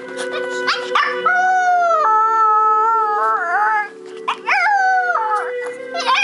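Yorkshire terrier howling along to music: several howls, each sweeping up and then held or sliding down, the longest lasting about two and a half seconds, with a short pause about four seconds in. Music with long held notes plays underneath.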